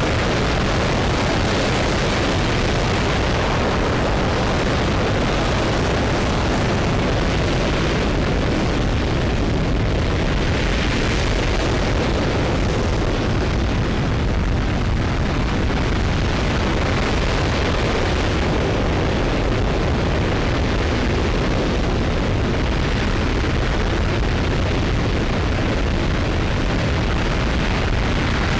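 RS-25 liquid-fuelled rocket engine firing continuously on a test stand during a hot-fire test: a loud, steady, deep roar of noise that holds at an even level throughout.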